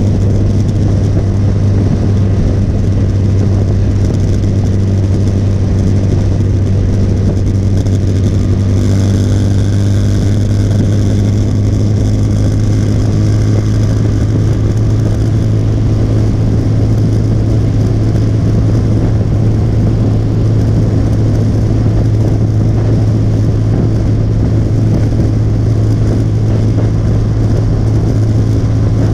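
Motorcycle engine running steadily at cruising speed, a constant low drone, with wind rushing over the microphone.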